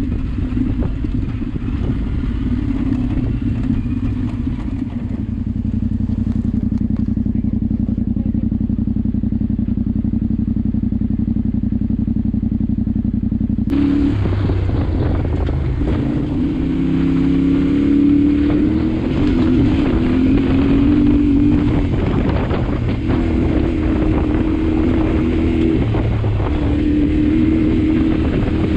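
Yamaha Ténéré 700's parallel-twin engine running on an off-road ride, with a steady engine note for the first half. After an abrupt change about halfway through, the note rises and falls with the throttle.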